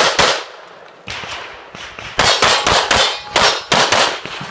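Rapid pistol fire: sharp shots, mostly in quick pairs. A pause of about a second and a half follows the first pair, then about six more shots come in quick succession.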